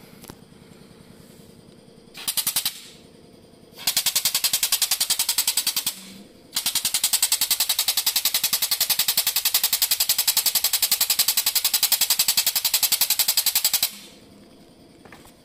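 Air-over-hydraulic floor jack's air-driven pump chattering in rapid pulses as it pumps the jack up. There are three runs: a short burst about two seconds in, another of about two seconds, then a long run of about seven seconds. Each starts and stops sharply as the air valve is opened and closed.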